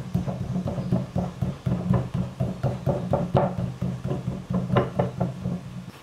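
Clay being pounded flat with a fist on a wooden potter's turntable to form the base of a coil-built pot: a fast, even run of dull knocks, about five a second, the loudest past the middle.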